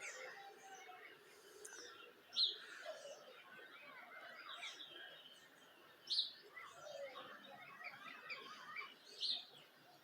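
Several birds singing and calling over one another. One short, sharp call stands out above the rest, repeated about every three to four seconds.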